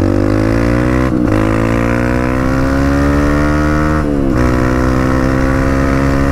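Dirt bike engine pulling hard under acceleration, its pitch climbing steadily. Short breaks about a second in and about four seconds in each drop the pitch, as the rider shifts up a gear.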